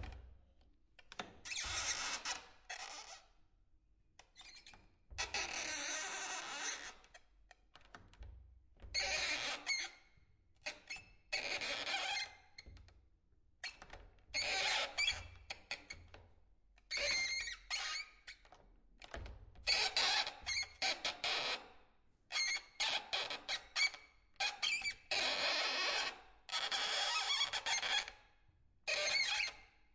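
A wooden door's handle squeaking as it is worked again and again: a run of separate creaky squeaks, each lasting from half a second to about two seconds, with short pauses between.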